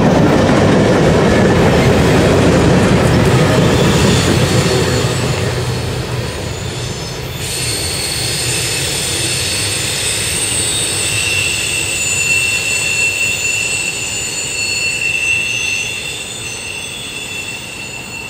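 Freight cars of a mixed freight train rolling past, their wheels rumbling on the rails, then fading as the end of the train moves away. About halfway through, several steady high squealing tones come in and hold while the rumble dies down.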